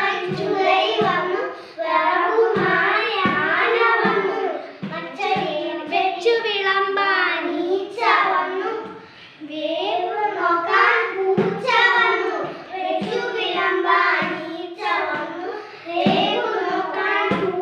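Three young children singing an action song together, their small voices in unison.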